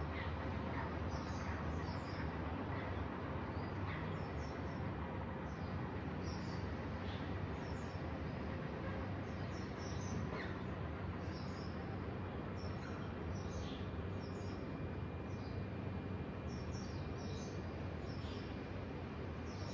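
Small birds chirping, many short high chirps scattered throughout, over a steady low rumble of outdoor background noise.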